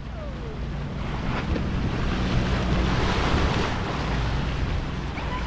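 Bow wave rushing and splashing along the hull of a sailboat under way, with wind buffeting the microphone. A low steady drone underneath from the boat's engine, which is motoring the dismasted boat.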